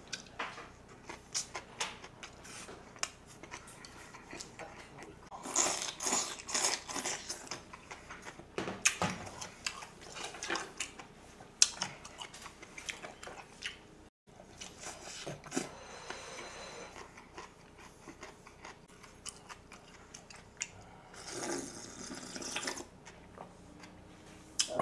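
Close-miked chewing and mouth sounds of someone eating kimbap, in short spells, with scattered light clicks of chopsticks and dishes.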